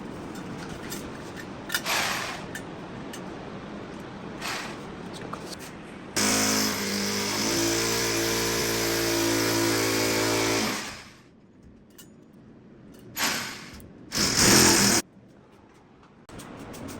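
Electric drill running for about four and a half seconds, then two short bursts, typical of drilling holes in a wall for bathroom accessory fixings.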